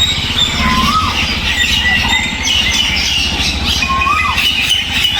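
A flock of birds chirping and squawking together in a banyan tree, many overlapping high calls, with a lower whistled call that rises then drops, heard twice. A steady low rumble runs underneath.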